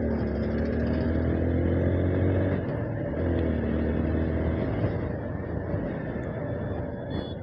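Motorcycle engine heard from the rider's seat, its note rising under throttle, breaking off briefly near three seconds and rising again, then dropping away after about four and a half seconds as the throttle is closed, leaving wind and road rush.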